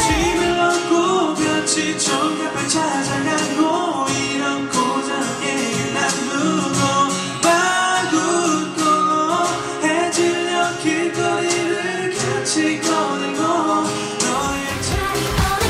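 Acoustic pop song: male vocals singing a melody over strummed acoustic guitars and keyboard.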